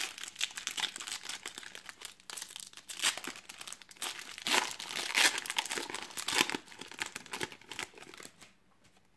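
Foil trading-card pack being torn open and its wrapper crinkled in the hands: irregular crackling that stops about a second before the end.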